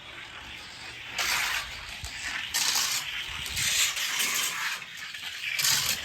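A die-cast toy car rolling down a gravity race track, its wheels on the track making a rushing, hissing noise that comes in several surges.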